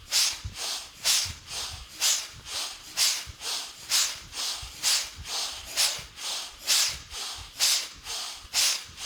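A person doing rapid, forceful pranayama breathing, a round of deep in-and-out breaths at about one breath a second, roughly ten breaths in all. Each breath is an audible rush of air, the in-breath and out-breath alternating in strength.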